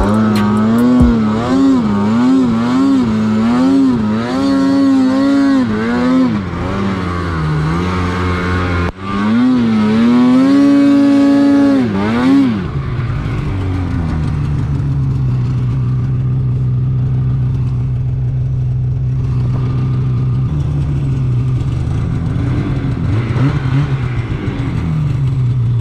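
Two-stroke mountain snowmobile engine on the throttle through powder, its revs rising and falling rapidly, then pulling hard at a high steady pitch. About halfway through it drops back to a steady idle.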